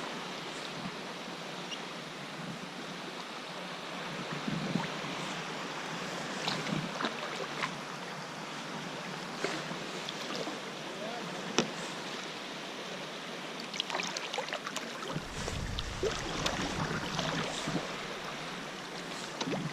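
Kayak paddling on open sea water: steady wash of water with irregular small splashes and drips from the paddle blades. A low rumble joins about three quarters of the way through.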